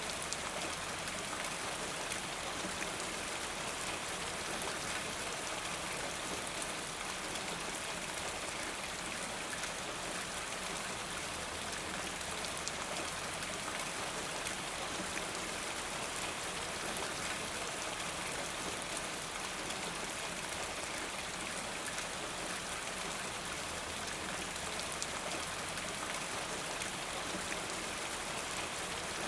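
Steady rain falling, an even hiss with the patter of drops on surfaces, unchanging throughout.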